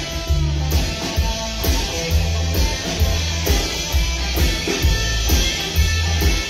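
Live band playing an instrumental passage with no singing: electric guitar over upright double bass and drums, with a steady beat.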